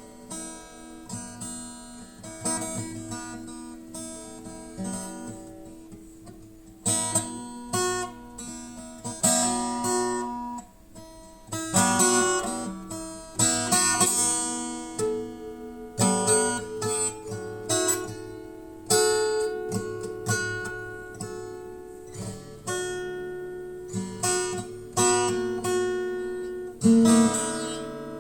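Acoustic guitar music: plucked notes and strummed chords, each new chord coming roughly every two seconds.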